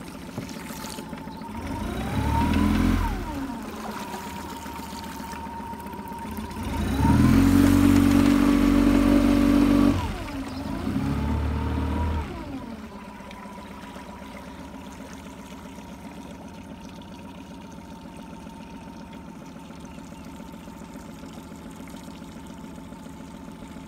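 Boat's outboard motor throttled up three times, the longest and loudest burst about seven to ten seconds in, its pitch rising and falling with each. Between the bursts and afterwards it runs steadily at low throttle, with a steady high whine throughout.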